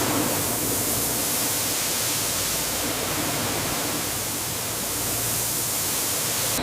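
Steady, even rushing hiss, strongest in the upper range, with no distinct strokes or tones.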